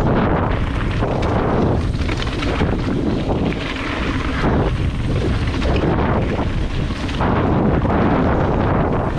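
Wind buffeting the microphone of a camera on a full-suspension mountain bike riding downhill, mixed with the rumble of tyres and bike rattle over the trail, rising and falling in loud gusts.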